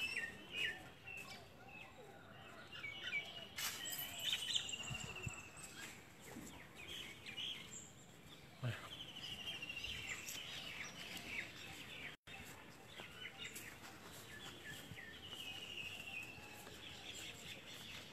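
Small birds chirping and calling, with quick rattling trills that come back every few seconds, over a faint outdoor background. A few faint knocks are heard among them.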